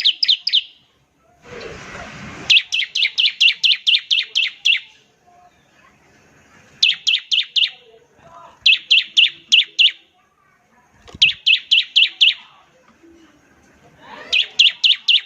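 Bar-winged prinia (ciblek) singing its rapid-fire 'nembak ngebren' song: bursts of sharp, high, evenly repeated notes, about five a second, each burst lasting one to two seconds with short pauses between, six bursts in all. A brief burst of noise sounds about two seconds in.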